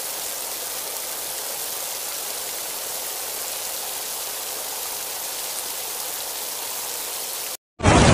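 A steady, even water hiss, mostly high-pitched with almost no low rumble. It cuts off suddenly near the end, and after a brief gap a much louder noise begins.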